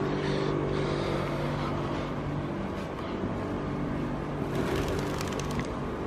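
A steady mechanical hum of a motor or engine running, with a few light clicks about four and a half seconds in.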